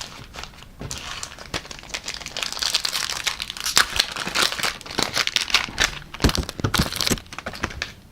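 A Panini Prizm football card pack's wrapper being torn open and crinkled by hand, in a long run of crackling.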